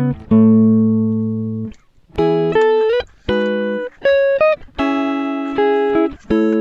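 Background music: plucked guitar notes and chords, each ringing and fading before the next.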